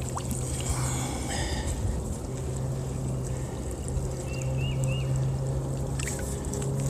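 Pond water sloshing and trickling as a drowned beaver and a steel trap are lifted and handled in muddy water, over a steady low hum. Three short high chirps come about four seconds in.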